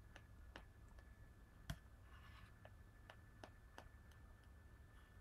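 Faint, irregular clicks of a computer mouse or similar desk controls, about a dozen, one louder than the rest about a second and a half in, over a faint steady high-pitched hum.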